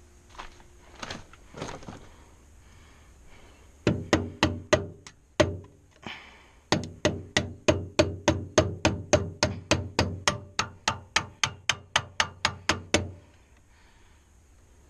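Hammer blows on metal, about four a second with a short ring after each, in two runs: a short one, then after a brief pause a long steady run that stops near the end. A few softer knocks come first.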